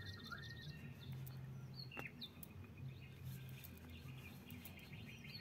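Faint, sparse bird chirps over a low steady hum, with a single sharp click about two seconds in.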